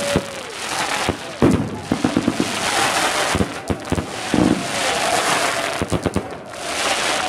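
Fireworks going off overhead: a rapid string of sharp bangs from aerial bursts, with longer spells of crackling about two and a half seconds in and again near the end.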